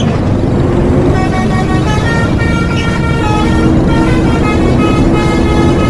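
Bus 'telolet' Basuri multi-tone musical horn playing a tune of short stepping notes, over loud engine and road rumble. The notes start about a second in and change pitch several times a second.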